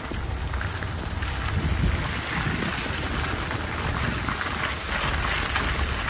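Car tyres rolling over a wet, muddy gravel track in rain, a steady low rumble under a dense crackle of grit and water.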